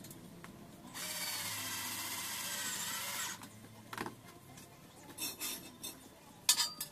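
Power drill boring into a metal angle bar for a little over two seconds, with a wavering squeal from the bit in the metal, then stopping. Several sharp metal clanks follow, the loudest near the end.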